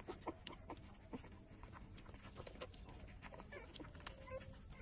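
Four-week-old puppies suckling at their mother: quiet, irregular wet clicks and smacks, with a short faint whine near the end.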